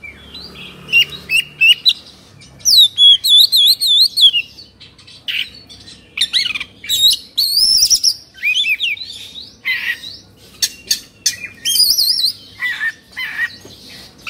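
Oriental magpie-robin (kacer) singing in an excited, agitated burst, the state keepers call 'kongslet' or 'emosi'. It gives a rapid run of varied phrases: sharp chirps, wavering whistled trills and short harsh squawks, with brief pauses.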